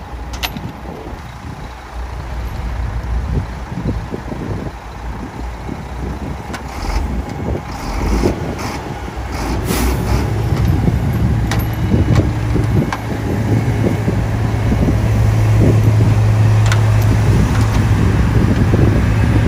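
Heavy diesel engines of a wheel loader and a dump truck idling close by, with a few sharp metal clinks as the tow chain is handled. About ten seconds in, a steady low engine drone sets in and grows louder.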